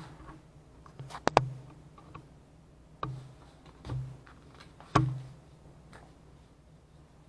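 A few separate sharp clicks and knocks: a quick double click, then single ones about a second apart, over a faint low hum.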